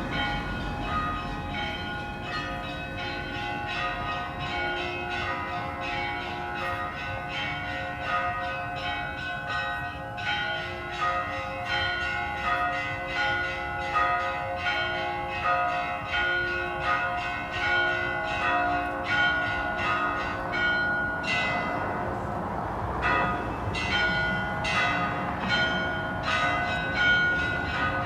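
Church bells ringing an Easter peal: several bells of different pitches struck over and over in a quick, steady rhythm, their tones overlapping as they ring on.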